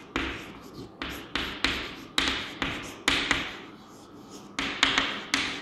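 Chalk writing on a chalkboard: a quick, irregular series of sharp taps and short scratchy strokes as a line of words is written out.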